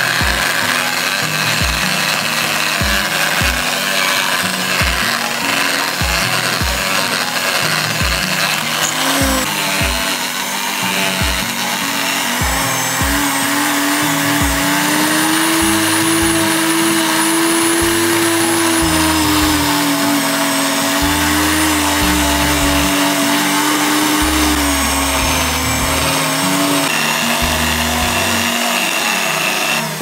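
Corded electric drill running steadily as its bit grinds in a hole in sandy ground, the motor's pitch wavering slightly under load. Background music with a steady beat plays underneath.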